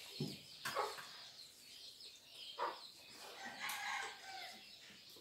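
Faint domestic chickens: a few short clucks and a longer crowing call about three and a half seconds in.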